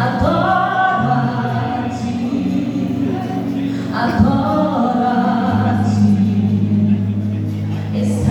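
Vocal group singing a gospel song in harmony, with long held notes over a steady low accompaniment.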